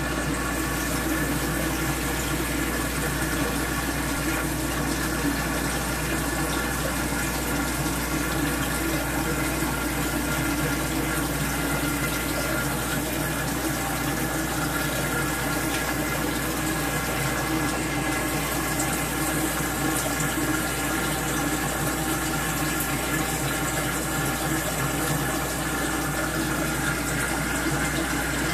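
Aquarium filter running: steady splashing, trickling water with a constant low hum beneath it.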